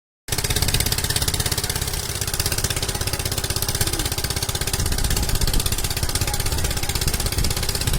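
Engine of a water pump running steadily at a fast, even beat while pumping the water out of a pond.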